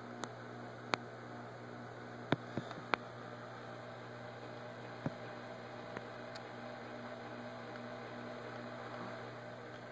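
Steady low electrical hum of a reef aquarium's pumps and equipment, with a handful of sharp clicks, most of them in the first three seconds.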